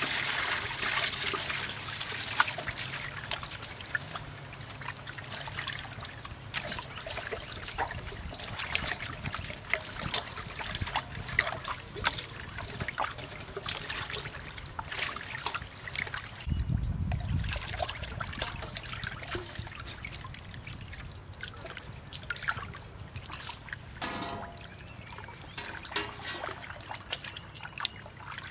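Water poured into a stainless steel bowl at the start, then hands kneading and rubbing raw pork stomach in the water: steady wet sloshing, squelching and small splashes. There is a brief low rumble about two-thirds of the way through.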